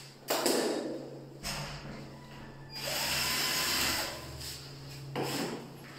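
Power drill working on the aluminium sliding-window frame in bursts: a short burst near the start, a longer run in the middle whose whine rises in pitch as the motor spins up, and another short burst near the end.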